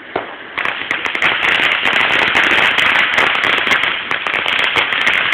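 Firework crackling: a single snap, then from about half a second in a dense, rapid run of small pops that keeps going steadily, like a string of firecrackers or a crackling firework.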